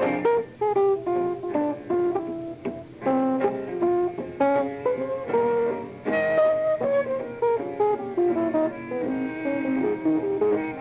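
Live jazz from a guitar, double bass and piano trio, with the guitar to the fore playing a quick line of plucked notes.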